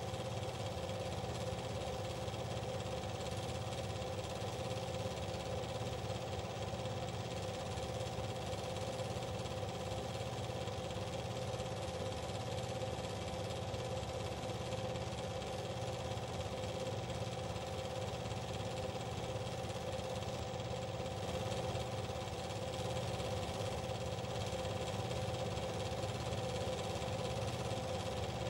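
Steady mechanical drone of a running motor, holding several steady tones with a fine even pulse underneath, unchanged throughout.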